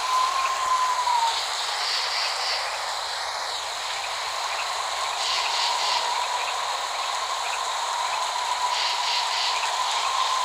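Steady rain, an even hiss with no thunder, over a thin steady tone that wavers slightly in pitch.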